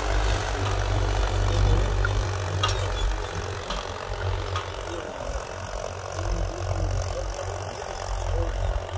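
Powertrac Euro 50 tractor's diesel engine running steadily under load as it pulls a 16-disc harrow, growing fainter as the tractor moves away.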